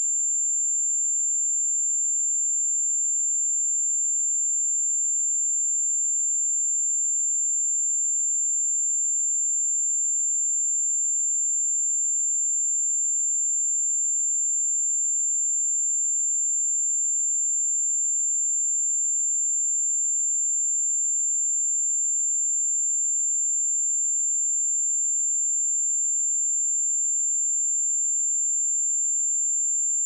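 A steady, high-pitched pure sine tone at 7273 Hz, a synthesized test signal for checking speakers or headphones.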